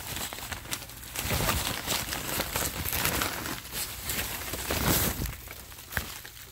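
Newspaper packing rustling and crumpling in irregular bursts as it is pulled apart by hand to unwrap a shipped potted plant.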